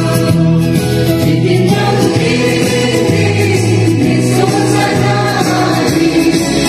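Music with choral singing: several voices over held chords that change every second or so.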